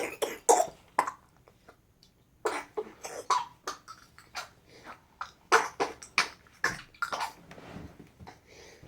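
A person coughing repeatedly: about three fits of several quick, harsh coughs each, with short pauses between the fits.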